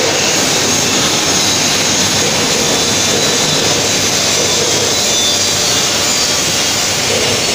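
CNC drilling machine drilling a large metal flange under flood coolant: a loud, steady whir and hiss of the spindle, cutting and coolant spray, unbroken throughout.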